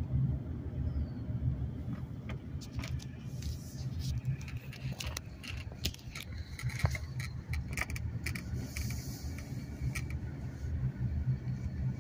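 Car driving, heard from inside the cabin: a steady low road rumble, with scattered sharp clicks and light rattling through the middle.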